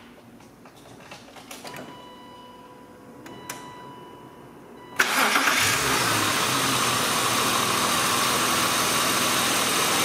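BMW E36 engine being started with the key: a few faint clicks and a thin steady tone first, then about halfway through the engine cranks, catches at once and settles into a steady idle.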